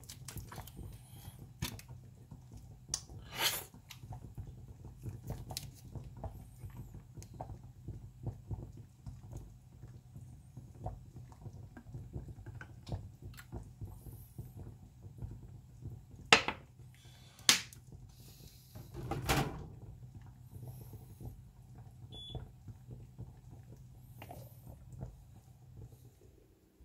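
Scattered small clicks and knocks of objects being handled, with a few louder sharp knocks, over a steady low hum.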